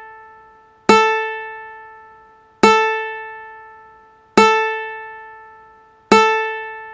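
A ukulele's open A string (A4, 440 Hz, standard GCEA tuning) plucked four times, about every second and three-quarters, each note ringing and fading away: a reference pitch for tuning the A string.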